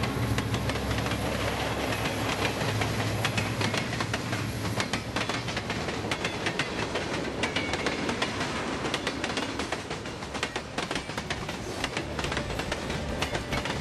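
Train rolling along the track, its wheels clicking over rail joints above a steady rumble, which is heavier for the first few seconds.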